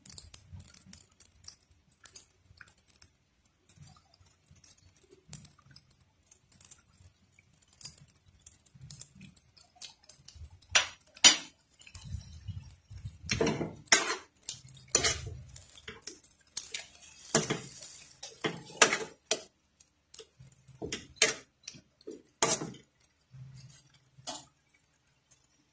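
Kitchen utensils and cookware clinking, tapping and knocking on and off, with louder clatters through the second half.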